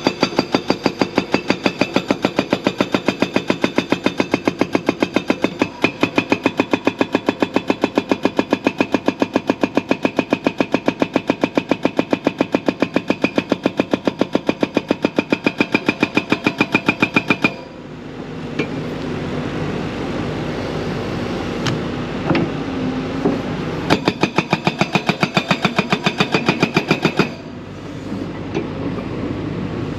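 Large JCB excavator working: a loud, very even clanking several times a second over its running engine. The clanking stops about seventeen seconds in and comes back for a few seconds near the end.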